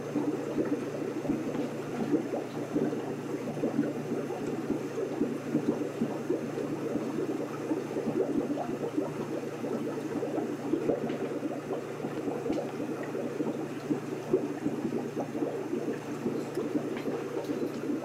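Aquarium water bubbling and gurgling steadily, over a low steady hum.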